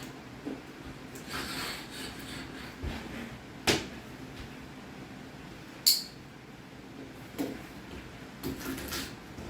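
Stainless steel caulk removal tool scraping and picking old caulk out of a shower seam in short, irregular strokes, with two sharp clicks of the tool.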